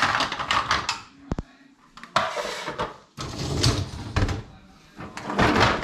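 A dishwasher's wire rack rattling as it is slid and wheel trims clatter against it while being set into it, in several bursts of rattling and knocks.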